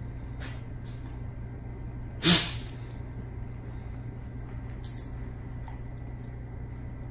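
A dog snorts once loudly about two seconds in, with a fainter short sound near five seconds, over a steady low hum.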